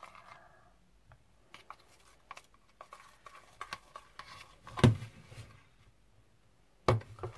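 A pen stirring shaving foam into white glue in a plastic tub: faint, irregular clicks and scrapes against the tub, with a louder knock about five seconds in and two sharp knocks near the end.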